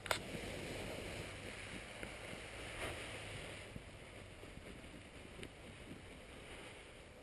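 Wind rushing over the microphone, strongest in the first few seconds and then dying down, with a sharp knock at the very start.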